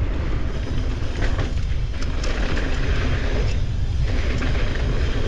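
Wind buffeting the microphone over the steady sound of mountain-bike tyres rolling on a rough dirt trail, with several sharp clacks and rattles from the bike over bumps.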